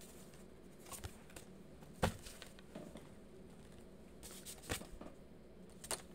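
Tarot cards being handled: a few scattered soft taps and flicks of card against card and the table, the sharpest about two seconds in.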